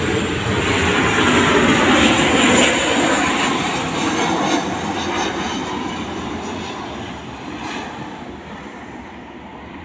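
Malaysia Airlines jet airliner passing low overhead on its landing approach: the engine roar is loudest about two seconds in, then fades steadily as the plane moves away.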